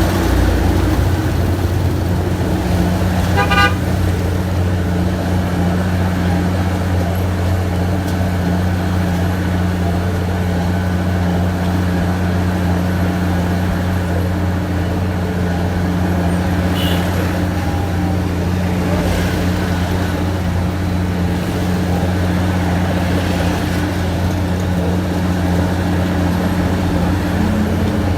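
Heavy engine running with a steady, even drone. A short horn toot about three and a half seconds in.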